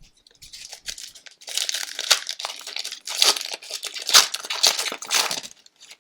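Foil wrapper of a hockey card pack being torn open and crinkled by hand, in a run of irregular crackling bursts that stops shortly before the end.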